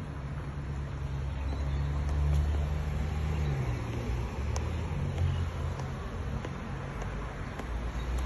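Road traffic: cars driving past on the road, a steady low rumble that swells about two seconds in and again around five seconds in.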